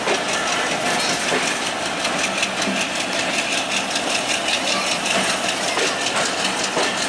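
Bangladesh Railway intercity passenger coaches rolling slowly out of a station: a steady running rumble from wheels and rails, with a fast, even beat of clatter.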